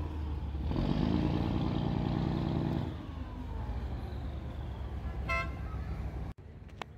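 Boat engine running with a steady low rumble, louder for the first three seconds. A brief high toot comes about five seconds in.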